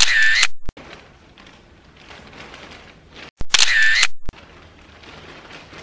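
Camera shutter sound, twice about three and a half seconds apart: each a click, a short whir, and a second click.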